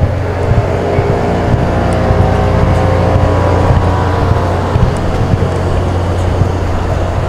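Steady, loud low machinery hum with a few faint higher tones over it, and irregular low bumps now and then.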